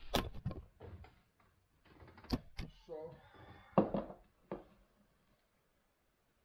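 Knocks and rustles of a bowl of popcorn being handled and set down on a desk, with a hand rummaging in the popcorn; the loudest is a single thump a little under four seconds in, and the sounds stop about five seconds in.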